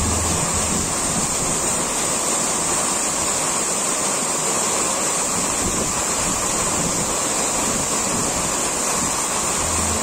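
Steady rush of a tall waterfall with two drops, heard close up from the pool at its foot: a constant, even noise of falling water with no breaks.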